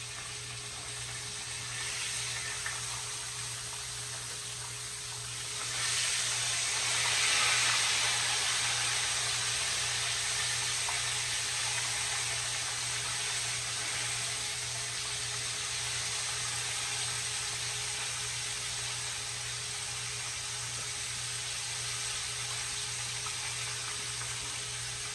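Oil sizzling in a skillet as a whole red snapper fries, a steady frying hiss that grows louder about six seconds in and then holds.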